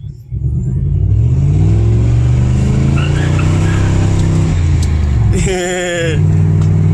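Crown Victoria's V8 engine revving hard as the car accelerates, its pitch climbing and then falling back, then revving again. A brief high wavering cry cuts in about five and a half seconds in.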